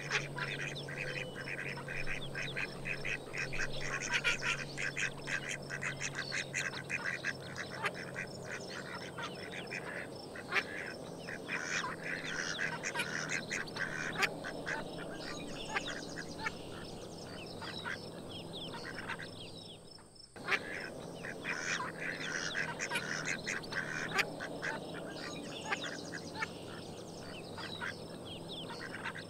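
Small flock of domestic ducks quacking: a busy, overlapping run of short calls, with a brief lull about twenty seconds in.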